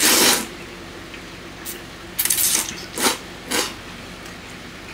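A person slurping thick ramen noodles: a long slurp at the start, a longer ragged one about two seconds in, then two short slurps close together near the end.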